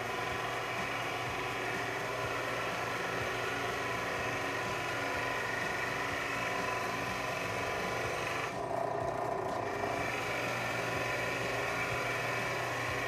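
Bench drill press with a 250-watt motor running steadily while a Forstner bit bores into a block of wood: a steady motor hum under the hiss of the cutting. About eight and a half seconds in, the high cutting hiss drops away for a second or so, then comes back.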